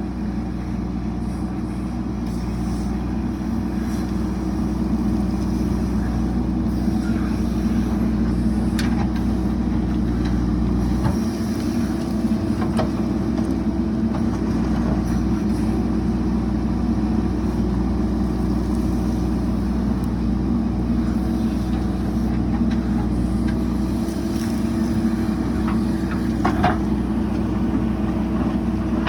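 JCB 3DX backhoe loader's diesel engine running steadily, its low note changing about eleven seconds in, with a few faint knocks.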